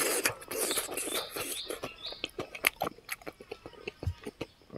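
Close-up wet chewing and lip-smacking of a mouthful of fried pig's feet and rice, a quick irregular run of small smacks and clicks.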